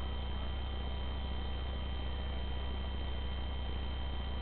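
Steady low hum with a faint hiss and no distinct events; the distant hounds being listened for do not stand out.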